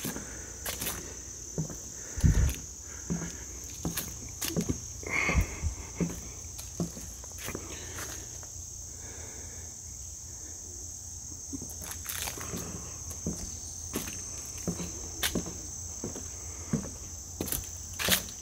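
Hiker's footsteps on a woodland trail, irregular steps about twice a second with a couple of heavier thuds, thinning out briefly in the middle. Under them, a steady high trill of insects.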